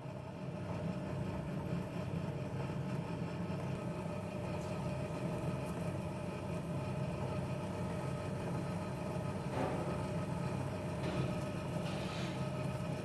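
A steady low mechanical hum that holds even throughout, with a few faint short rustles or knocks near the end.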